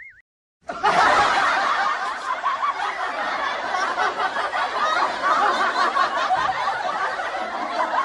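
Crowd laughter: a dense mass of many overlapping laughs that cuts in abruptly after a brief silence about half a second in and keeps going at an even level.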